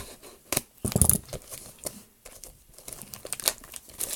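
Plastic wrapping on a card-game box crinkling and tearing as it is pulled open by hand, in irregular crackles, loudest about a second in.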